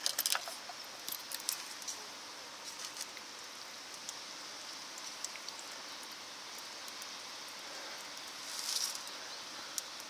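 Steady patter of light rain, with scattered small clicks and taps in the first couple of seconds and a brief brighter rustle near the end.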